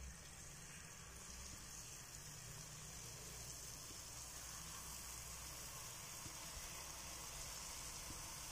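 Faint, steady sizzling of jalebi batter frying in shallow, moderately hot oil as spirals are piped in from a squeeze bottle. It grows slightly louder as more batter goes into the pan.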